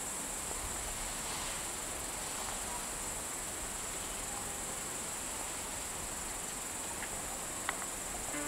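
Crickets chirring steadily, a high-pitched continuous trill, with a single faint click near the end.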